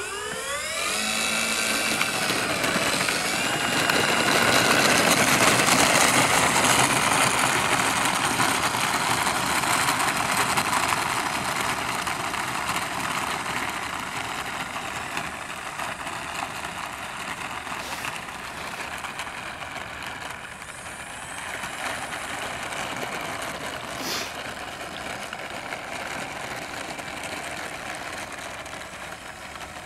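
The four electric motors and propellers of an Avios C-130 Hercules RC model spooling up with a rising whine, then running steadily as the plane taxis. The whine grows quieter after about ten seconds as it moves away down the runway.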